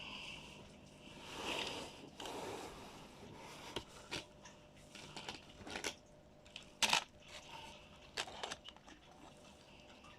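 Hands handling small toy pieces and packaging: scattered light clicks, scrapes and rustling, with one sharper click about seven seconds in.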